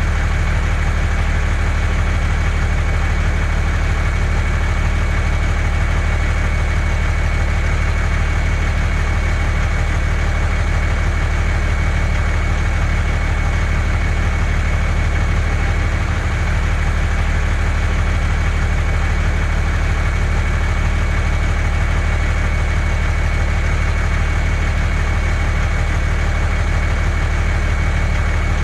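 Engine idling steadily: an even, deep running sound with fine rapid pulsing and a thin high whine held over it, unchanging throughout.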